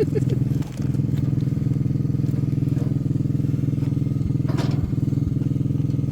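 Small gasoline engine running steadily at a constant speed, with a brief dip in level under a second in and a few light knocks near the end.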